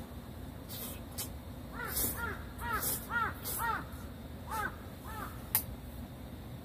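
A bird calling about seven times in quick succession, each call rising and falling in pitch, followed by a sharp click.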